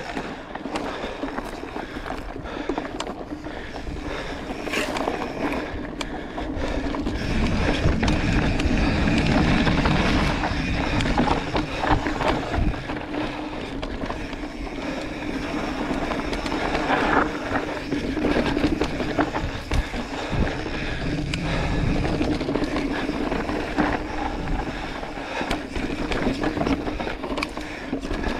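Mountain bike rolling along a dry dirt trail: tyres crunching over the dirt, with rattles and sharp knocks from the bike over bumps and a rumble of wind on the microphone that swells and fades.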